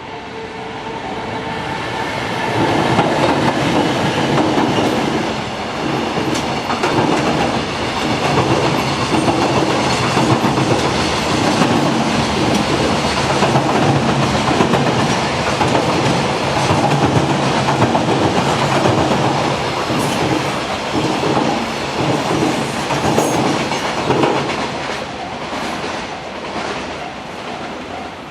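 Freight train led by a JR Freight EF510 electric locomotive, with an EH500 locomotive in tow, passing a level crossing for over twenty seconds. Its wheels clatter over the rail joints, building up about two seconds in and fading near the end. The crossing's warning bell rings at the start and comes through again as the train clears.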